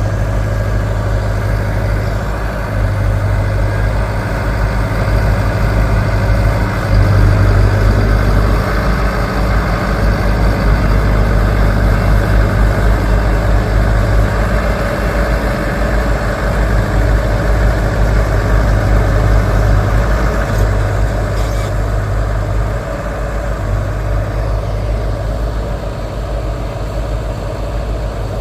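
Heavy machine's diesel engine running steadily with a deep low rumble, a little louder through the middle and easing off near the end.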